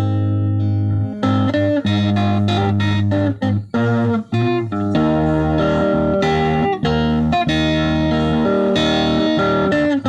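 Electric guitar played as a melody of single notes ringing over a steady low held note, with a few brief breaks between about three and four and a half seconds in.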